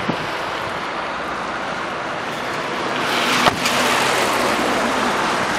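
Steady wind noise on the microphone, with the Nissan Note's driver's door shut once with a sharp thud about three and a half seconds in.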